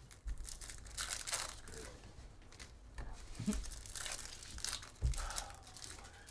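Foil trading-card pack wrappers being torn open and crinkled by hand, in a run of short, irregular crackling rustles.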